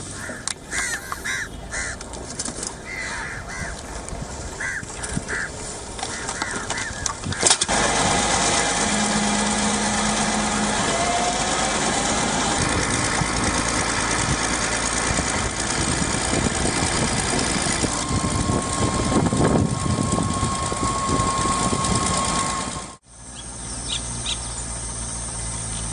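Outdoor field sound at a garbage dump, in several cuts. First come scattered short bird calls. About seven seconds in, a louder steady noisy rumble takes over, with crows calling over it. Near the end it cuts out sharply to a quieter background.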